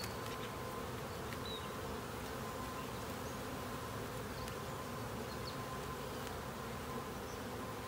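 Steady humming drone of a honey bee colony crowding over an open hive and a frame of comb lifted out of it.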